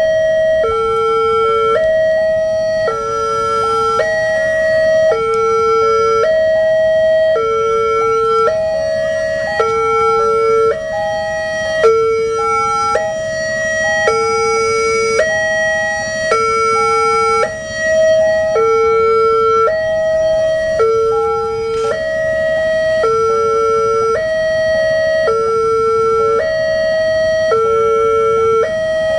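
Indonesian railway level-crossing electronic alarm, two units sounding together. They play a few tones stepping between pitches in a steady, repeating pattern, warning that a train is approaching and the barriers are down.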